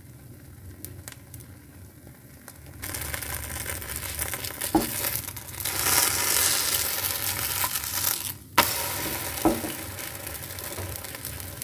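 Semolina-and-potato batter pancake frying in a little oil in a nonstick pan, sizzling, while a silicone spatula scrapes under it and turns it over. The sizzle is faint at first and gets much louder about three seconds in, with a few soft knocks of the spatula against the pan.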